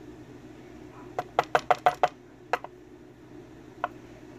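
Small brass parts of a disassembled Yale pin-tumbler lock cylinder clinking together: a quick run of about six light metallic clicks, then a few scattered single clicks.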